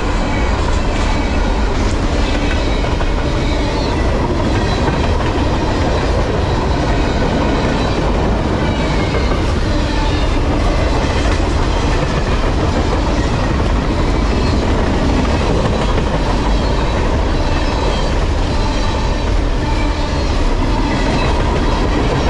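Freight train cars, a mix of boxcars and tank cars, rolling steadily past close by, their steel wheels running on the rails.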